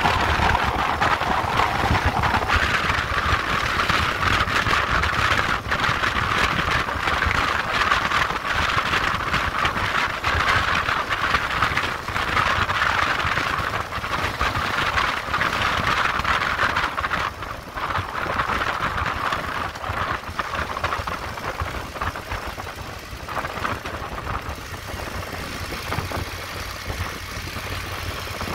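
Motorcycle riding with its engine running under loud wind rush. Near the end the wind rush fades and the level drops as the bike slows in traffic, leaving a steadier low engine hum.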